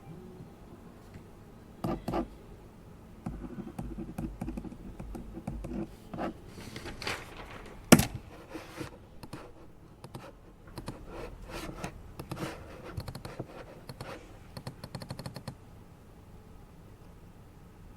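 Typing on a computer keyboard in irregular bursts of key clicks, with one sharp, louder knock about eight seconds in.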